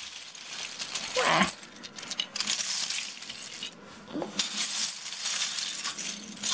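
Plastic Lego bricks clattering and rattling as hands rummage through a large loose pile of them.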